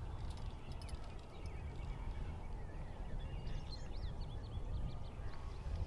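Wind rumbling on the microphone, with small birds chirping faintly for a couple of seconds in the middle.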